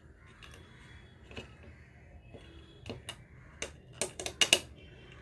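Irregular small metallic clicks and taps of a screw being tightened to clamp a 7805 regulator IC against the metal body, with a quick cluster of sharper clicks near the end.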